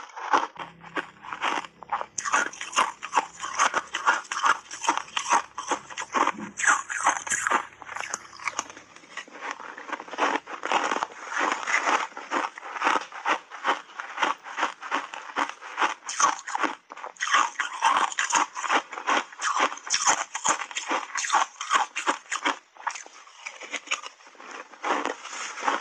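Close-miked chewing of crunchy, slushy shaved ice coated in matcha powder: a fast, unbroken run of crisp crunches.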